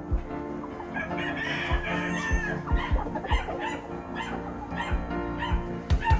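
A rooster crows once, about a second in, over background music.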